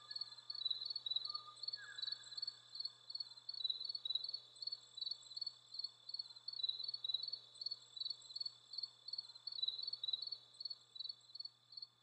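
Forest field recording of the last Kauaʻi ʻōʻō: an insect chirps steadily in high, evenly spaced pulses, about three a second, fading away near the end. A few clear whistled notes from the ʻōʻō sound in the first two seconds, one gliding down.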